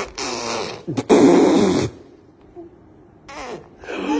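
Raspberries blown with the lips: buzzing lip trills in two bursts of about a second each, a pause, then a shorter one near the end.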